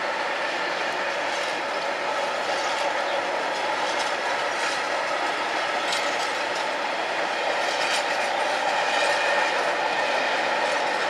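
Freight train of covered hopper wagons running past at a steady pace: a continuous rumble and rattle of wagons and wheels on the track, with a few sharper clanks.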